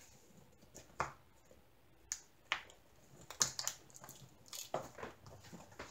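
Faint handling of a diamond painting's plastic-covered sheet as hands smooth and press it onto a stretched canvas: a few isolated clicks, then a busier run of small taps and crinkles past the middle.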